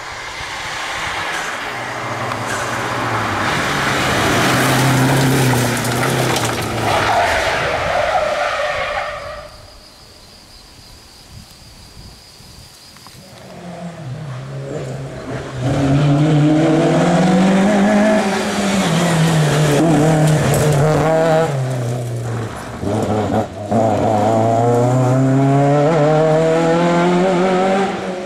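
Rally cars driven flat out on a tarmac stage. One car's engine rises in pitch and drops away about nine seconds in. After a short lull, another car's engine revs hard through several gear changes, its pitch climbing and falling with each shift.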